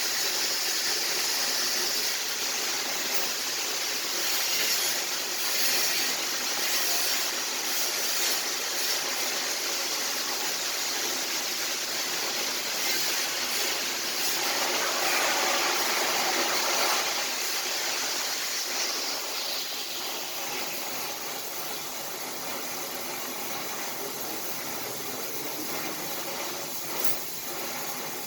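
Welding arc hissing and crackling steadily, ending about twenty seconds in.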